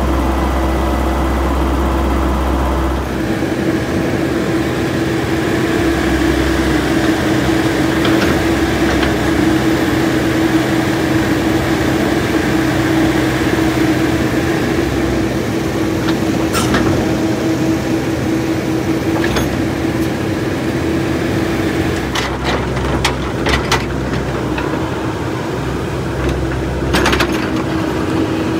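Komatsu PC78US mini excavator's diesel engine running steadily with a constant droning tone while the bucket digs a trench in gravel and clay. Scattered sharp knocks and clanks from the bucket and stones come a little over halfway through and again near the end.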